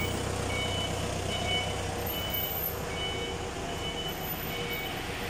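A vehicle reversing alarm beeping, short high beeps about every three quarters of a second, over a steady low engine hum.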